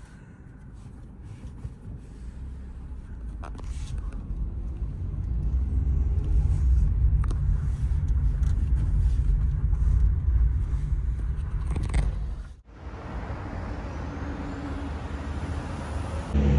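Low rumble of a motor vehicle, swelling over the first few seconds to a steady level, breaking off suddenly after about twelve seconds and going on more faintly.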